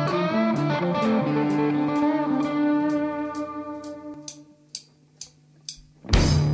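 Instrumental rock passage. Ringing guitar notes fade away over a steady high tick keeping time. About six seconds in, the full band comes in loudly with drums.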